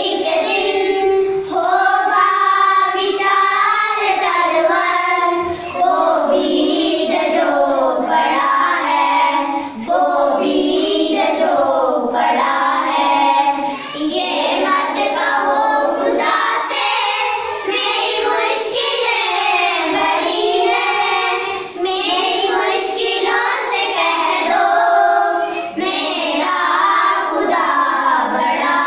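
A group of young children singing a song together without accompaniment, with short breaks between phrases.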